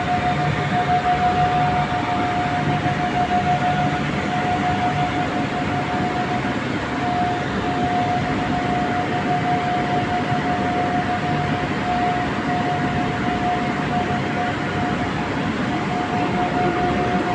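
Steady, loud industrial noise from steel plant furnace equipment: a constant high-pitched tone over a continuous rumble and hiss.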